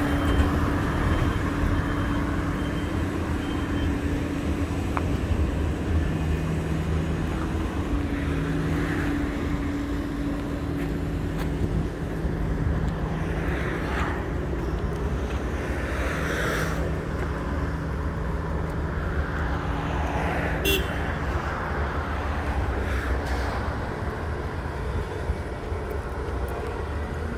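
Heavy diesel engines of construction machinery running, their pitch shifting now and then as they work. A reversing beeper sounds in the first few seconds, and there is a single sharp knock about three-quarters of the way through.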